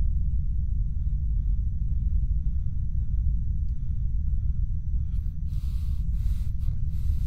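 Deep, steady rumble of a spacecraft's engines accelerating hard, as designed for film. About five seconds in, short bursts of hissing noise cut in and out over it.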